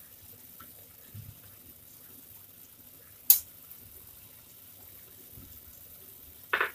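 Two sharp clinks of kitchen utensils against cookware over a faint steady hiss: a very short, bright click about three seconds in, the loudest sound, and a second, slightly longer clink near the end.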